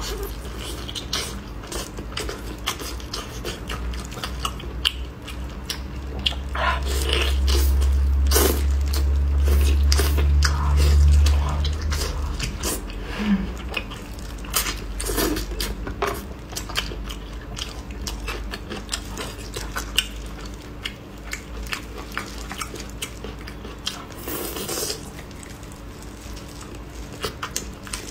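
Close-miked chewing and biting on braised pork ribs: wet mouth smacks and many short clicks as meat is bitten and chewed off the bone. A low rumble swells for several seconds in the middle and is the loudest part.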